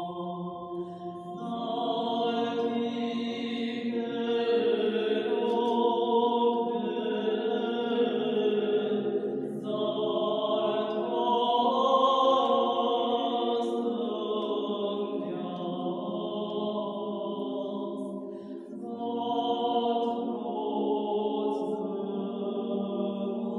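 Female vocal ensemble singing slow, sustained, chant-like lines over a low held note, in a rock-cut stone church hall. The voices break off briefly about four-fifths of the way through, then come back in.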